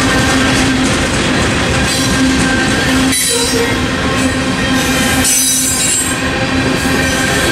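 Freight train of refrigerated boxcars rolling steadily past at a level crossing: continuous rumble and rattle of steel wheels on the rails. High-pitched wheel squeal rises about three seconds in and again about five seconds in.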